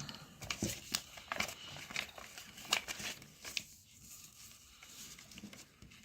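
Crinkling and rustling of small paper and plastic wrappers being handled and unfolded. The crackles are busiest for the first three and a half seconds, then thin out.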